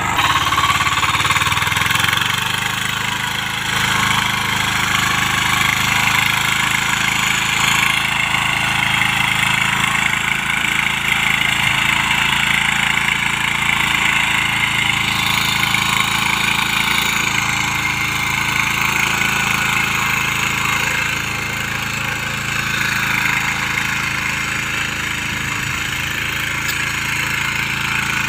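Small engine of a walk-behind mini power tiller running steadily as the tiller's rotary tines work through soil.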